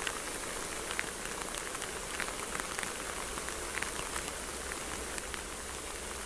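Steady rain falling on vegetation and trackside ballast, with many separate drops ticking close by.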